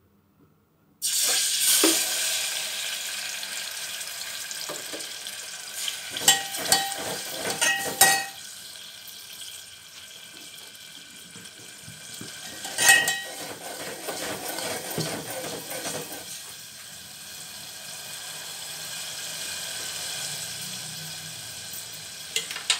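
Onion-tomato purée frying in hot oil in an aluminium pot: a loud sizzle starts suddenly about a second in and settles to a steadier, quieter sizzle. A steel ladle stirs and clinks against the pot a few times in the middle.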